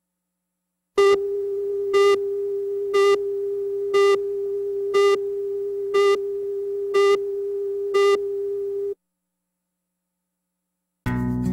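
Countdown-leader test tone on a broadcast slate: one steady mid-pitched tone running for about eight seconds, with a louder beep each second marking the count, then cutting off suddenly. Music starts just before the end.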